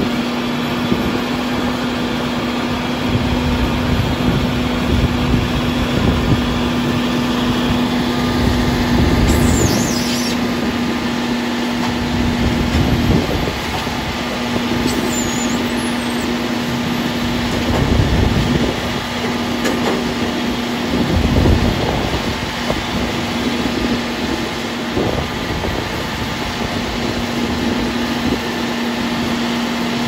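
Diesel engines of a JCB telescopic loader and a tractor-drawn feed mixer wagon running, a steady engine drone with several louder swells as the loader lifts and tips silage.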